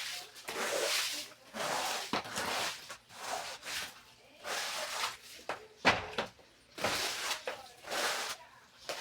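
Repeated scrubbing strokes about once a second, from cleaning a refrigerator, with a sharp knock just before six seconds in.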